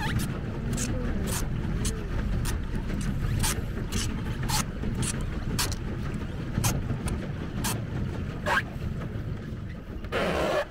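Pedal boat moving across choppy lake water, with a steady low rumble of wind on the microphone and water against the hull. Over it comes a light, regular splashing tick about twice a second as the boat is pedalled. A louder, brief rush of noise comes near the end.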